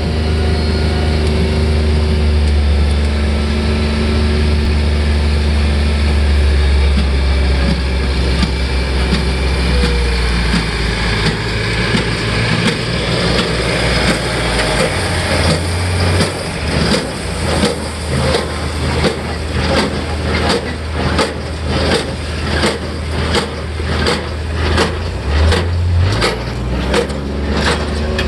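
John Deere 3010's gasoline four-cylinder engine running steadily while driving a Case IH 8545 inline square baler. From about halfway through, the baler's strokes come through as a regular beat of about one and a half a second over the engine.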